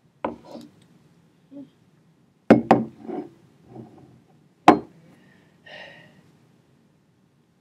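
A few sharp claps and slaps of hands striking together during signing. The loudest are two close together about two and a half seconds in and another near five seconds, with softer taps between.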